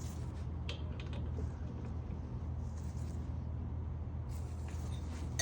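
Steady low hum with a few faint clicks about a second in.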